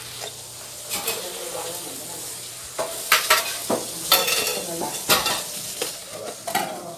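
Steady hiss with a handful of sharp clicks and knocks from household objects being handled, about five spread over the few seconds.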